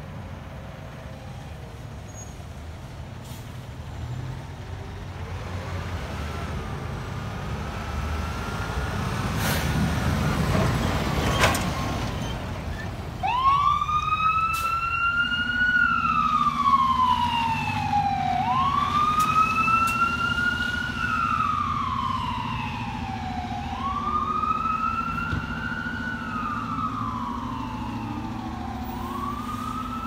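Fire engine pulling away with its diesel engine rumbling and two short, sharp blasts a couple of seconds apart. About thirteen seconds in, its electronic siren starts a slow wail, rising and falling about every five seconds, with a steady low hum under it.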